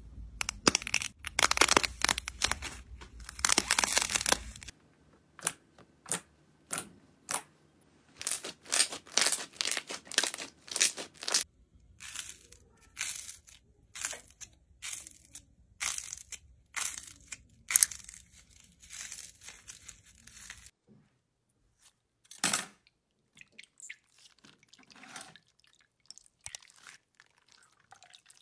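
Slime being squeezed and pressed by hand, giving runs of sharp crackles and pops: dense at first, in separate clusters through the middle with one sharpest pop about two-thirds through, and fainter and sparser toward the end.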